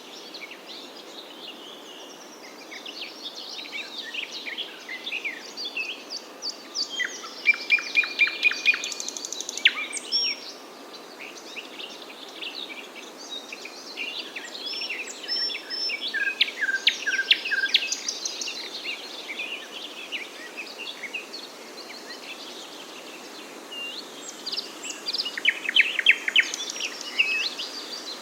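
Several songbirds chirping and singing in overlapping short calls and rapid trills, in bursts with quieter spells between, over a steady background hiss.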